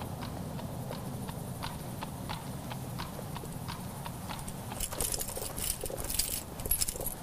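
Horse hooves clip-clopping at a walk on hard ground, about three strikes a second, growing fainter as the horse moves off. From about five seconds in, rapid metallic jingling, like armour scales clinking as someone walks.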